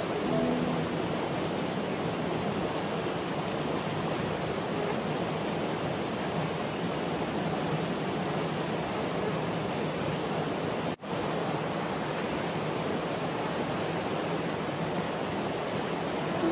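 Stream water rushing steadily over rocks, a constant even hiss, briefly cutting out about eleven seconds in.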